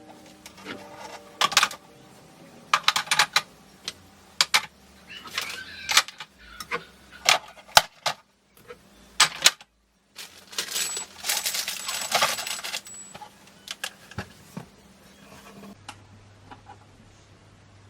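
Small hard kitchen items being handled and set down: sharp clinks and clatters, with two busier stretches of rattling about five and eleven seconds in.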